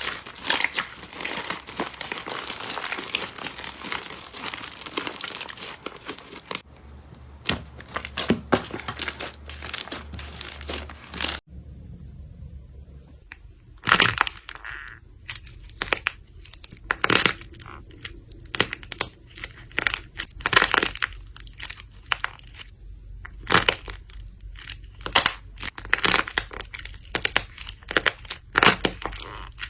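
Slime being pressed and squeezed by hand. The first several seconds are dense crackling. After cuts between clips, it becomes a string of separate clicks and pops.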